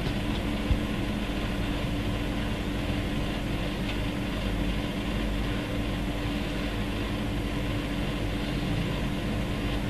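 Steady mechanical hum with a constant low tone and a light hiss, even throughout; a single small click about a second in.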